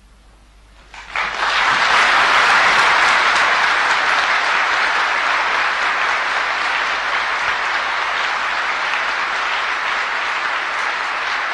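Large audience applauding, breaking out suddenly about a second in and holding steady.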